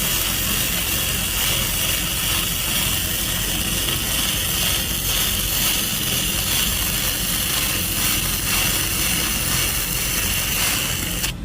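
Electric welding arc crackling and sizzling steadily, then cutting off suddenly near the end as the arc is broken.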